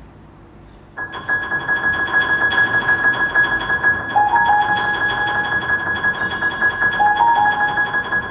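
Instrumental music begins about a second in, after faint hiss: a held high note over quick, even repeated notes and a slow melody line, with two bright crashes that ring off near the middle.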